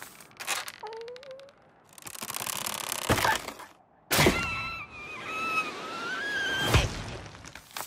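Cartoon sound effects: a series of sharp knocks and cracks, about four in all, the loudest about four seconds in. Between them comes a rushing noise, and after the loudest knock a wavering whistle-like tone runs for about two and a half seconds.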